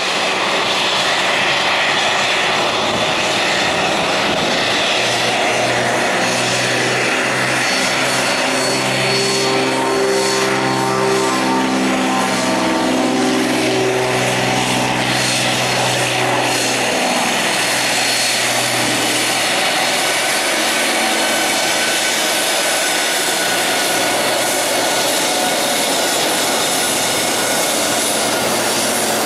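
Embraer E190's twin GE CF34 turbofan engines at taxi power, a loud steady whine and rush as the jet rolls by close up. For a stretch in the middle, a lower droning hum swells and then fades under it.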